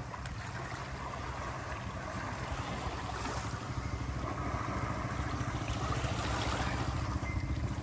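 Small sea waves lapping on a pebble shore, mixed with wind blowing on the microphone: a steady rush that grows slightly louder toward the end.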